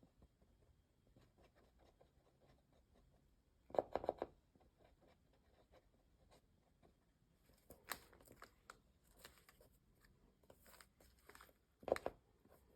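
Faint handling noises from hands working on craft materials at a table: scattered rustles and scrapes, with a short louder scrape about four seconds in and a few more near the end.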